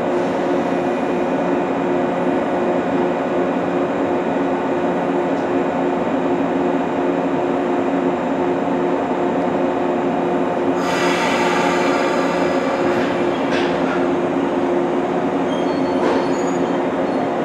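JR West 115 series electric train humming steadily at the platform, then starting to pull away. About eleven seconds in, a high ringing squeal of several tones sets in suddenly as the train begins to roll, with a few short clanks after it.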